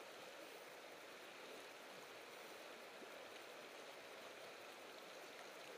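Faint, steady rush of a shallow, fast-flowing river.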